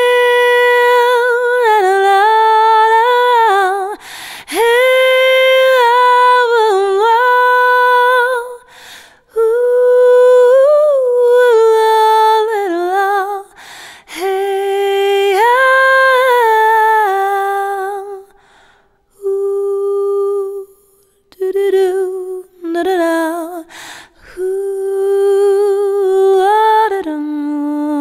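A woman humming a wordless melody in long held phrases of about four seconds each, with slight wavers in pitch and short breaks between them. In the second half the phrases become shorter and more broken, and they end on a lower note.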